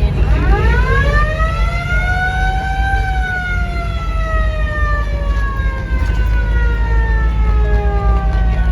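A siren sounds one long wail: it rises quickly to its peak about three seconds in, then slowly falls in pitch. Under it is the steady low rumble of a vehicle driving.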